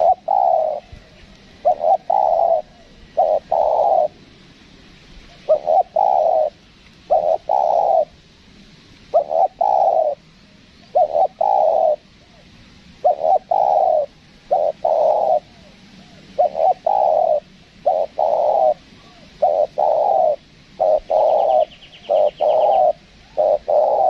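Spotted dove cooing: repeated hoarse coos, mostly in groups of two or three with short pauses between them.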